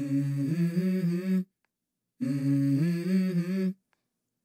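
Background music: a hummed vocal melody, two phrases of about a second and a half each that step between a few notes, each followed by a short silence.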